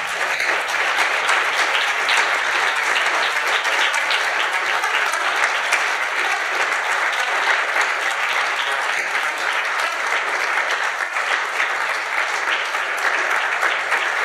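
Audience applauding, many hands clapping at a steady level throughout.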